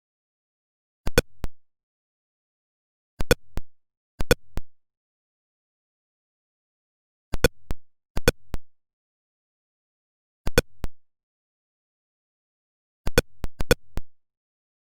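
Atari Pong sound effects: short electronic beeps in quick clusters of two to four, seven clusters at uneven gaps, with dead silence between.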